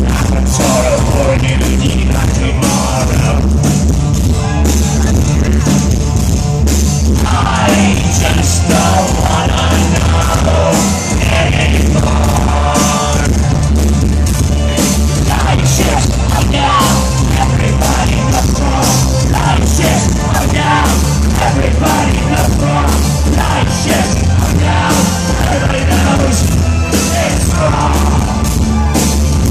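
Live electro-industrial band performance: a loud, steady heavy beat with synthesizers and a singer's voice over it, recorded from the crowd.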